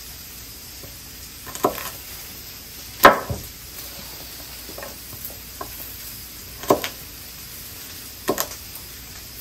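Knife chopping carrots on a wooden cutting board: half a dozen sharp, irregular knocks, the loudest about three seconds in. Under them runs the steady sizzle of steak frying on a Blackstone propane flat-top griddle.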